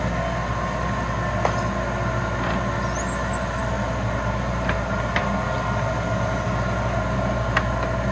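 Steady electric machine hum made of several constant tones, with a few light clicks scattered through and a brief high warble about three seconds in.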